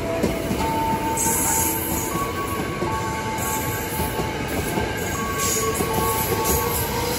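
Ex-Tokyo Metro 6000-series electric commuter train running past close by: a steady rumble of wheels on rail with thin wheel squeal that holds one pitch, then another, every second or two.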